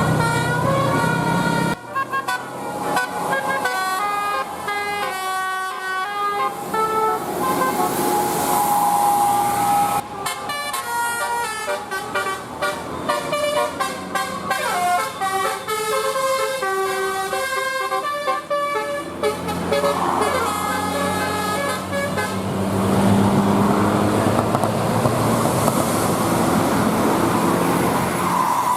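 Bus 'telolet' musical air horns (Basuri-type multi-tone horns) playing quick, jaunty tunes, the notes stepping rapidly up and down. Several separate horn clips follow one another with abrupt changes. In roughly the last third the tunes give way to a steady noisy rush.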